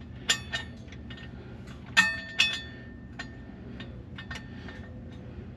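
Scattered metallic clinks and taps of hand tools, a wrench and socket on the bolts while torque converter bolts are fitted under the truck. Several clinks ring briefly, and the loudest pair comes about two seconds in.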